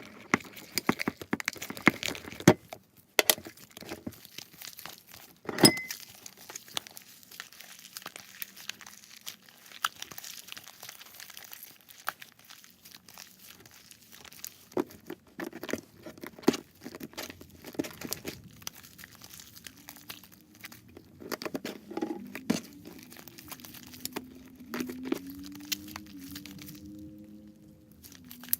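Slime being stirred in water in a bowl with a utensil: irregular wet crackling, squelching and clicks as the utensil scrapes and taps the bowl.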